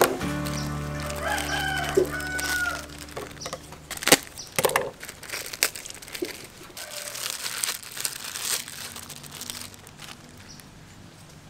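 A rooster crows once, about a second in, over soft background music. A plastic bag of pickled greens crinkles and is squeezed out into a ceramic bowl, with a few sharp clicks.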